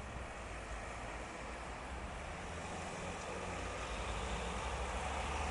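Low rumble of distant rolling thunder, growing slowly louder.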